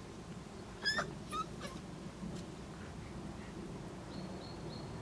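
Border collie puppy giving a short high-pitched yelp followed quickly by two shorter squeaks, about a second in, while play-fighting with its mother.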